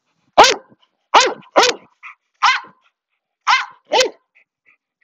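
A dog barking: six short, sharp barks over about four seconds, some coming in quick pairs.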